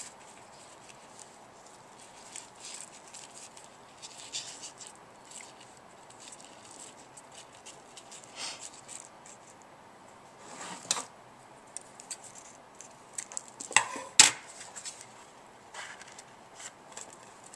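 Hands tying twine around a cardstock card and handling the paper, giving soft scattered rustles and small scrapes. A sharper click stands out near the end.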